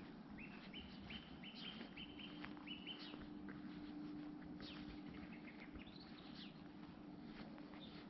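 A songbird calling: a quick run of about eight short, evenly spaced chirps in the first three seconds, then a few scattered calls, over a faint steady low hum.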